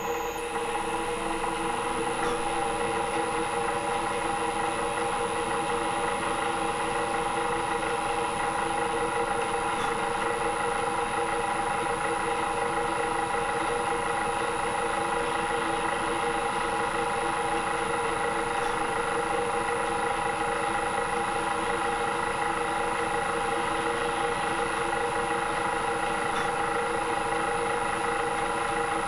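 Small electric drill running steadily, driving a 1.2 mm bit through a cast-iron axle box cover into the axle box beneath.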